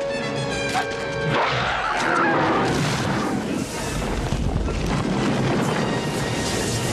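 Film action soundtrack: tense music with loud booms and crashes; a held tone is heard in the first second and a half.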